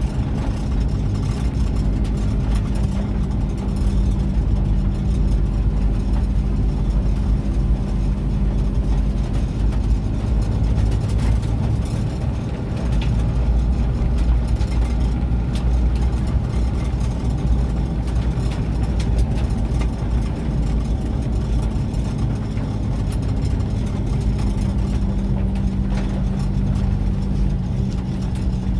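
Car engine and tyre noise heard from inside the cabin while driving on a wet road: a steady low hum with road rumble throughout.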